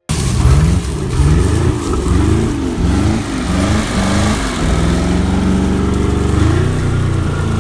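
Malibu wakeboat's inboard engine revving up and down in quick blips, then holding a steadier speed from about two-thirds of the way in.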